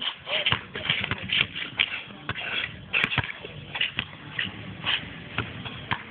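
Basketball bouncing on an outdoor court and sneakers scuffing, an irregular run of thumps and scrapes, several a second.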